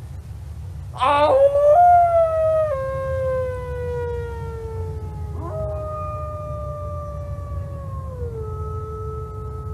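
A man howls like a wolf through cupped hands, one long howl that falls in pitch; a few seconds later a wolf answers with its own long howl that overlaps his and steps down in pitch near the end.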